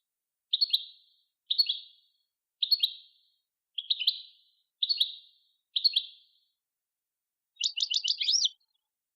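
A songbird singing: six short chirping phrases about a second apart, then a quicker trill near the end.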